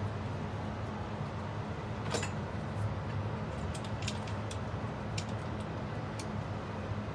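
A scattering of short, sharp light clicks and ticks, like small metal parts or tools being handled, over a steady low hum and hiss.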